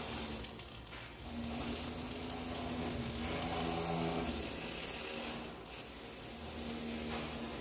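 Flux-cored arc welding on carbon steel: the welding arc hissing and crackling steadily, with a brief drop in level just under a second in.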